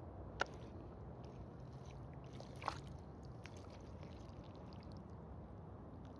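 An F10 trainer being worked free of deep wet mud, squelching with a short sharp click about half a second in and a louder wet sucking pop about two and a half seconds in, followed by small wet ticks.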